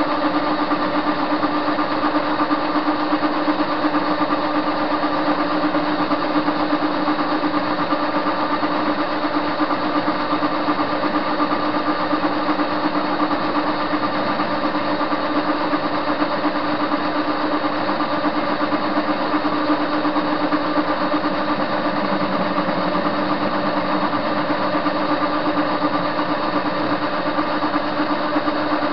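Soviet-era TV-16 lathe running steadily as it turns a metal bar blank, its motor and gearing giving an even hum with a constant tone over a hiss.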